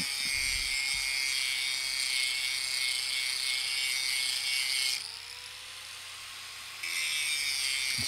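Recorded grinder sound effect played back by a model-railway Arduino welding simulator's MP3 module: a steady, hissing grinding on metal, representing the fabricator cleaning up the weld joint. It breaks off about five seconds in and resumes about two seconds later.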